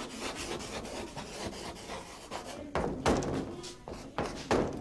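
Chalk writing on a blackboard: quick scratching and tapping strokes, with two louder strokes about three seconds and four and a half seconds in.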